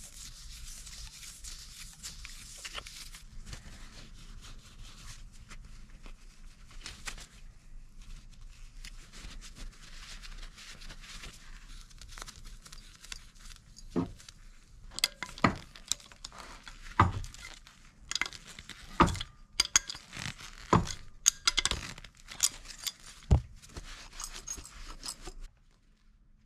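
Teflon thread tape being pulled off its roll and wrapped around a brass threaded adapter, a faint crinkly hiss. From about halfway through, a run of sharp clinks and knocks as the brass adapter and brass pressure reducing valve are handled and screwed together.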